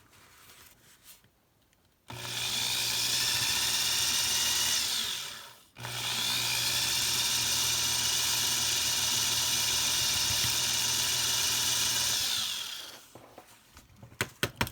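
Electric drill with a 9/64-inch bit drilling out the rivet of a Hot Wheels die-cast car. It runs steadily in two bursts, about two seconds in and again just before the middle, each ending with the motor winding down in a falling whine; the second, longer run stops near the end.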